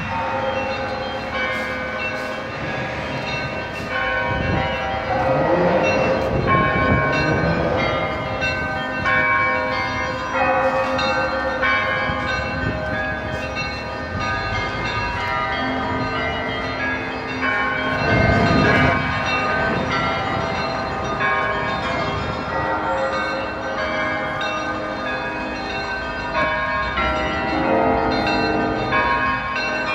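Church bells ringing, many overlapping pealing tones, over street traffic noise. A vehicle passes a few seconds in.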